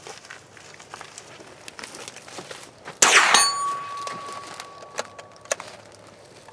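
A single rifle shot about three seconds in, followed by a steady ringing tone that fades out over about two seconds.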